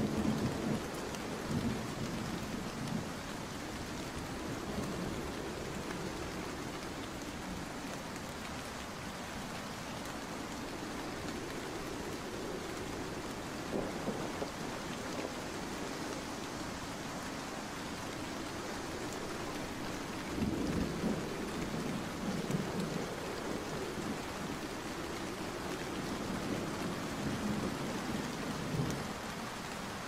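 Steady heavy rain hissing and pattering. Low rumbling swells rise under it at the start, briefly about halfway through, and again through much of the last third.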